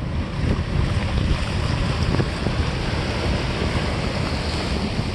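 Small waves breaking and washing up onto a sandy beach, with wind rumbling on the microphone.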